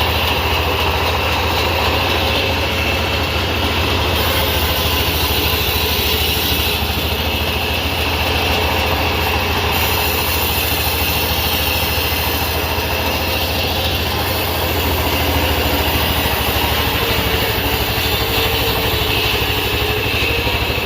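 Sawmill machinery running steadily with a loud, continuous low hum.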